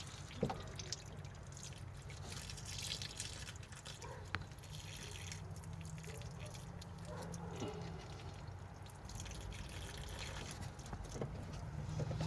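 Engine coolant dripping and trickling out of the engine, left undrained before the water pump was loosened. A steady low hum runs underneath, and a few light clicks come about half a second in and again around four seconds.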